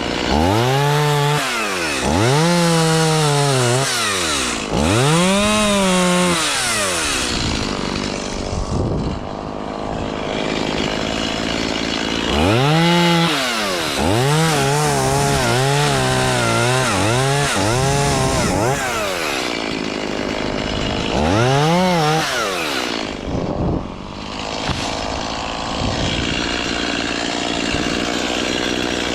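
Two-stroke chainsaw revved up to full throttle and let back to idle about six times, each burst lasting a couple of seconds. The longest run, about halfway through, holds high for several seconds with brief dips in pitch, as when the saw is cutting.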